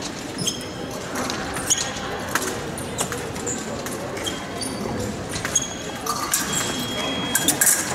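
Épée fencers' footwork during a bout: shoes squeaking and stamping on the piste, with sharp taps and clicks scattered throughout.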